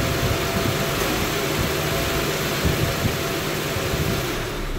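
A Honda Pilot's 3.5-litre V6 idling steadily from above the open engine bay. It has just been started after an oil change and is being run briefly to circulate the new oil.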